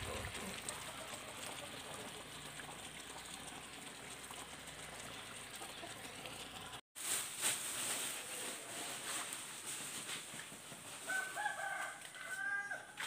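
A rooster crowing once near the end, a pitched call in a few connected segments, over a steady low hiss.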